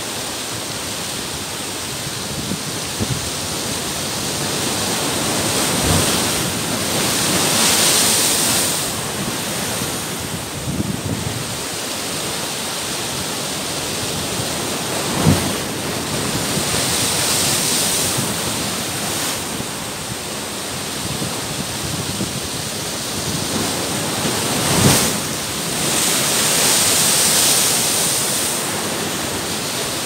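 Heavy ocean surf breaking over shoreline rocks, a continuous wash of churning foam. Waves surge in and strike the rocks with a sharp thump three times, about every nine to ten seconds, each followed by a swell of spray and rushing water.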